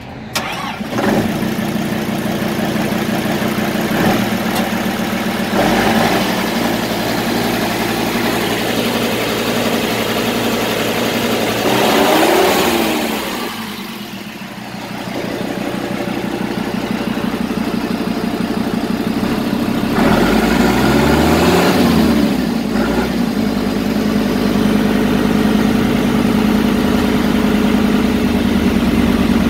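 Kubota M125X tractor's diesel engine running at idle, with its pitch briefly rising and falling twice, about twelve seconds in and again about twenty-one seconds in.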